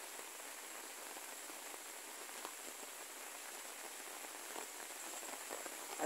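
Light rain: a faint, steady hiss of drizzle with a few soft ticks of drops.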